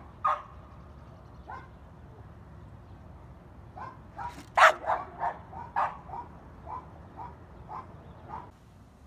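A dog barking: a couple of single barks, then a run of quick barks from about four seconds in. The run is loudest at its start, then spaces out and fades toward the end.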